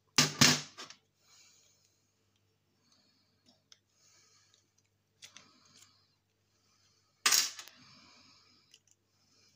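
Small plastic electrical switch being cut and pried apart with hand tools: two sharp snaps from side cutters near the start, faint scraping and small clicks of a screwdriver working at the housing, then another loud snap about seven seconds in.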